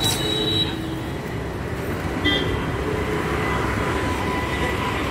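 Road traffic rumbling steadily, with a short vehicle horn toot at the start and another brief toot about two seconds in.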